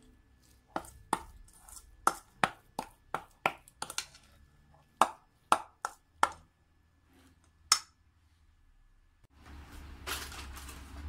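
A metal spoon clinking and scraping against a stainless steel mixing bowl as stiff dough is worked: about a dozen sharp clinks at irregular intervals, ending about eight seconds in. Near the end a steady rushing noise with a low hum takes over.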